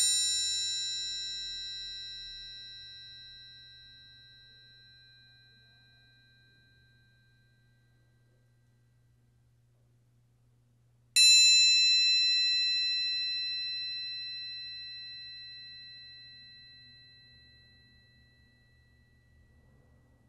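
Orchestral triangle ringing out after a strike with a beater, fading away over about eight seconds; struck again about eleven seconds in and left to ring until it dies away.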